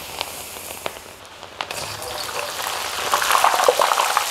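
Masala-coated okra deep-frying in hot oil: a steady sizzle with scattered pops. It grows louder and busier about three seconds in, as the okra is stirred and lifted with a slotted spoon.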